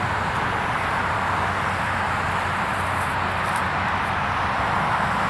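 Steady outdoor rushing noise with no distinct events, even in level throughout.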